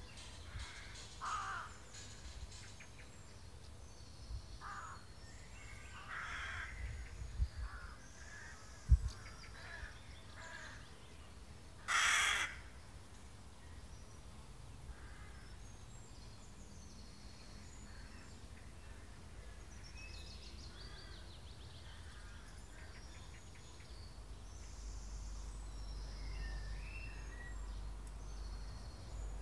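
Garden ambience of birds calling on and off, with one loud harsh call about twelve seconds in. A single sharp thump comes about three seconds before it, and a low rumble rises near the end.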